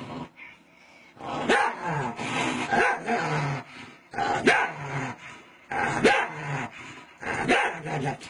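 Small dog snarling and barking in five short fits about a second and a half apart, each opening with a sharp bark that trails into a growl: an agitated dog warning off a finger pressed on its forehead.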